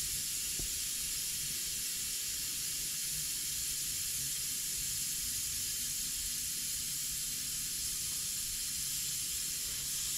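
Compressed air hissing steadily out of a pickup's rear air helper bags through the compressor kit's small release valve as the bags are deflated and the truck lets down.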